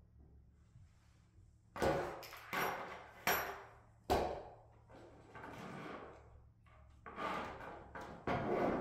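Push-pull control cables and metal fittings of a hydraulic control valve being handled on a tabletop: a series of sharp knocks and clatters, several close together about two seconds in and two more near the end, some with a brief metallic ring.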